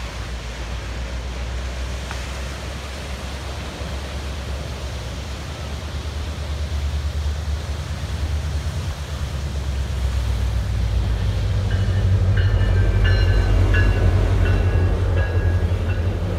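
Metrolink commuter train approaching and passing close, its low rumble building steadily louder. Short high-pitched tones break in over the last few seconds.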